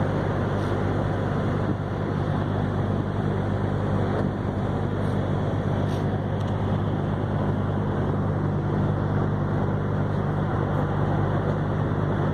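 Ferry boat's engines running on the crossing: a steady low hum with a constant pitch, under a rushing hiss of wind and water.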